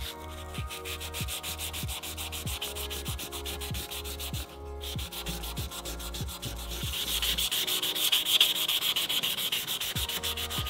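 Rapid, rhythmic sanding strokes, growing louder in the second half, over background music with a steady beat.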